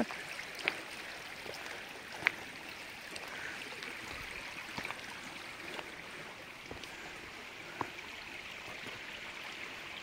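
Shallow mountain stream running over stones, a steady rush of water. A few sharp ticks of footsteps on the stony path stand out over it.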